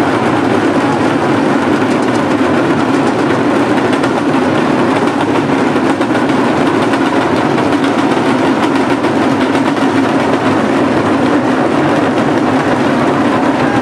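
Loud, steady din of a very large crowd on the boats and river bank, with no single voice standing out.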